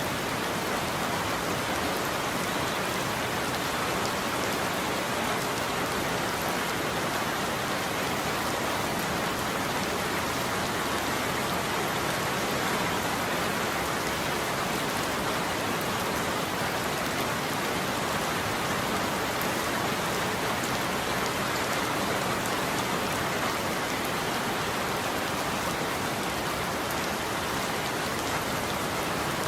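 Steady rain falling on a surface, an even hiss of many drops with no thunder heard.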